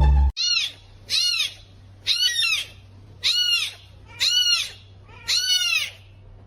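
An animal calling over and over, six high calls about a second apart, each rising then falling in pitch.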